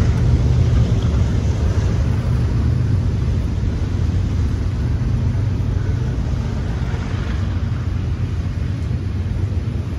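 Diesel locomotive engine running with a steady low rumble that slowly grows fainter.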